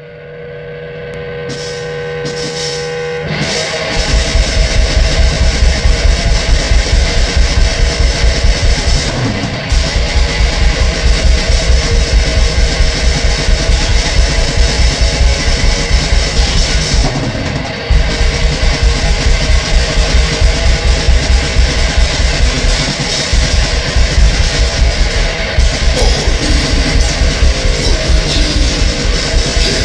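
Heavy metal music. A distorted tone swells for about four seconds, then distorted electric guitar and rapid drums come in full, with brief breaks about ten and eighteen seconds in.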